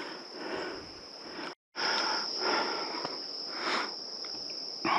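Steady high-pitched insect drone, with a person breathing hard in short, repeated breaths.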